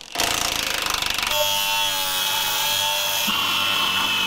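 A cordless impact wrench hammering briefly on a bolt under the vehicle frame, then an angle grinder running steadily with a constant whine as it grinds into a steel frame bracket.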